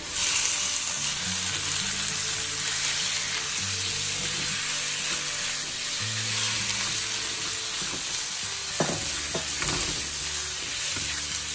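Raw boneless chicken pieces sizzling in hot oil with minced garlic and ginger in a nonstick wok, the sizzle coming up as the chicken hits the pan and holding steady. A spatula stirs and scrapes the chicken around the pan, with a few scrapes near the end.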